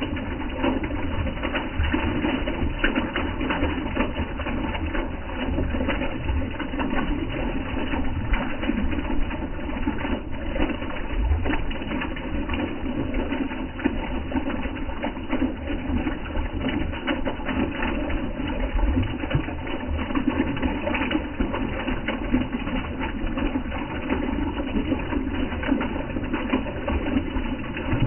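Small stream of water pouring over a mossy rock and splashing steadily into a shallow pool, with occasional brief low rumbles.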